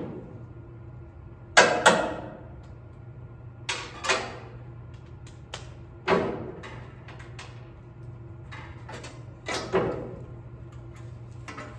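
Several sharp metallic clanks and knocks a second or two apart, each with a short ring, as metal parts are handled while stripping the forklift, over a steady low hum.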